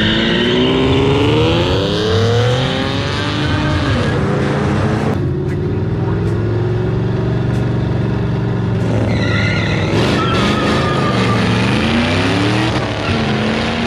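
Ford Mustangs doing drag-strip burnouts and launches: engines revving hard, rising in pitch, with rear tyres squealing as they spin. The sound jumps abruptly about five seconds in to a steadier engine note, then the revving and tyre squeal climb again near the end.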